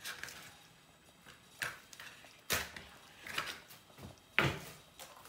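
Thick cream sauce simmering in a wok, with about five short, irregular pops as bubbles burst at the surface.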